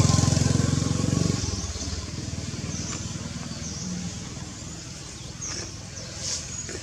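A motor vehicle's engine running close by: a low rumble, loudest at the start, that fades away within about two seconds. Then a quieter background with a few short high chirps.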